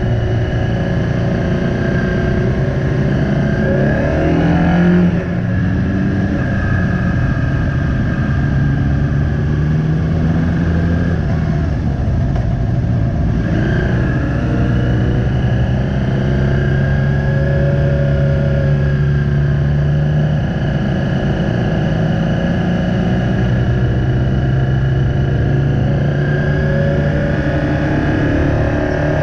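Motorcycle engine running steadily while riding, heard from on board the bike. The pitch swells briefly about five seconds in and again around fourteen seconds in.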